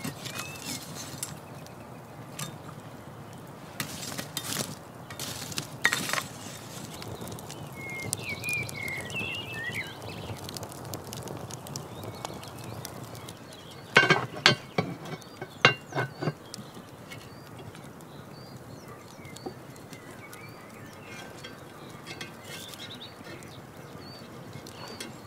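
Wood campfire crackling with scattered pops. A quick run of loud, sharp clinks and knocks comes about halfway through, and a bird twitters briefly before that.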